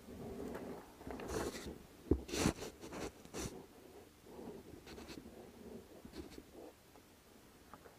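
A steel roller drive chain being handled on a wooden board: links scraping and clinking, with a cluster of sharp metallic clicks about two to three and a half seconds in, then a few fainter clicks.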